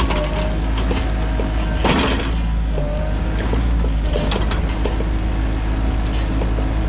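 Sany mini excavator's diesel engine running steadily under work, with short whines, scattered clicks and a crack of breaking wood about two seconds in.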